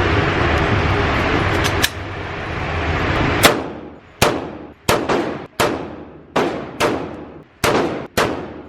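A steady loud rushing noise, then, about three and a half seconds in, a run of eight pistol shots in quick succession, each with a short echoing tail.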